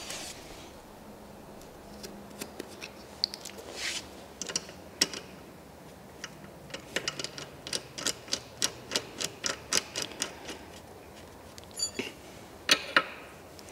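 Small sharp metal clicks as a hydraulic hose fitting is worked onto the port of a portable car lift's pump, sparse at first and then a steady run of about three a second. Near the end come two louder clinks as a steel spanner is picked up off the concrete floor.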